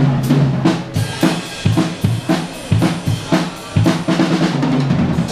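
Live band music led by a drum kit: kick and snare hitting a steady beat, about three strokes a second, over held low notes from the band.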